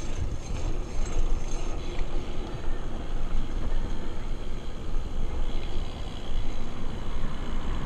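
Steady wind and road noise from riding a bicycle along a concrete street: an even noise, heaviest in the low end.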